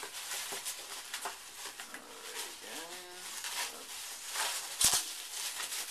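Bubble wrap and cardboard packing rustling and crinkling as a box is unpacked by hand. A brief squeaky whine comes about three seconds in, and a sharp knock near the end.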